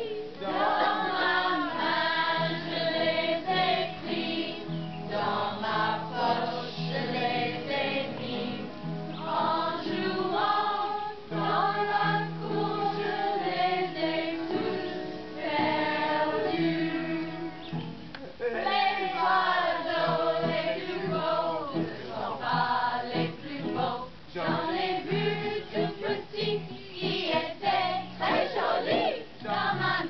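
A mixed group of children and adults singing a French children's song together, led by a song leader.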